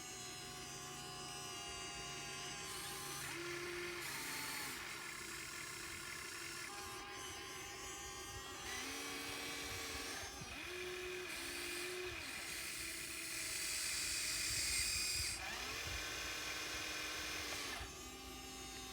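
Small electric motors of a radio-controlled model excavator whining. The pitch steps and ramps up and down in separate runs as different functions are worked.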